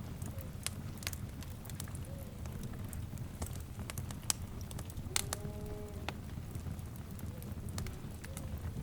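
Wood fire crackling: a steady low rumble of flames with sharp pops and snaps scattered throughout. About five seconds in, a short pitched animal call sounds once in the background.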